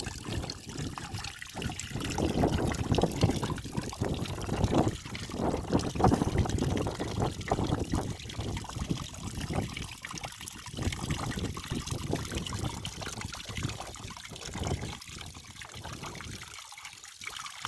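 Water trickling and splashing over a small homemade waterfall, a continuous uneven flow that is a little quieter in the second half.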